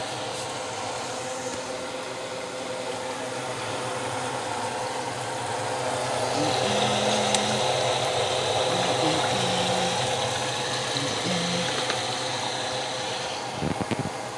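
Steady mechanical hum with several held tones, growing a little louder about six seconds in. A few short knocks come near the end.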